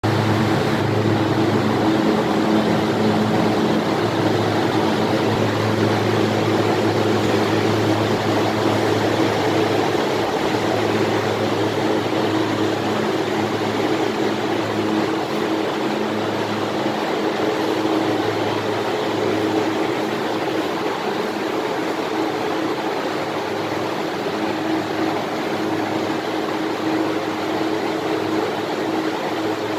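Freezer cold room's twin-fan evaporator unit running: a steady rush of fan air over a low, even hum, easing slightly toward the end.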